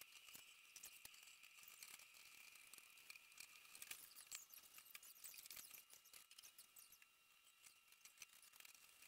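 Near silence, with faint scattered high-pitched ticks and clicks over a faint steady high hum.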